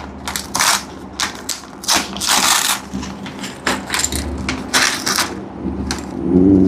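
Plastic Lego parts bag crinkling as it is torn open and handled, a run of short, irregular crackling rustles.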